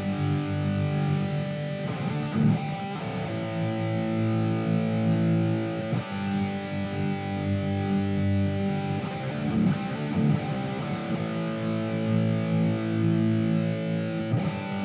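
Electric guitar with an early Yamaha 'hot' humbucker in the bridge position, played through a Positive Grid Spark amp: strummed chords left to ring, changing every three to four seconds.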